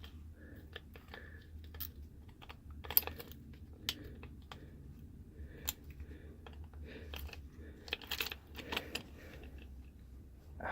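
Irregular light clicks and taps of a Wiser knob lock's parts being handled and worked as the picked lock is manipulated to free the front end of the knob.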